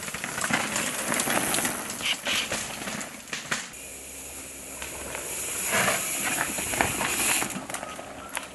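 Downhill mountain bikes passing close on a dirt trail: tyres crunching and skidding over dirt and rocks, with rattles and sharp clacks from the bikes. Two go by, one in the first few seconds and another about six seconds in.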